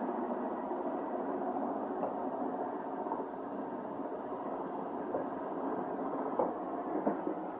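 iRobot Roomba 770 robot vacuum running: a steady whirr from its brushes and vacuum motor with a thin high whine, and a couple of light knocks near the end.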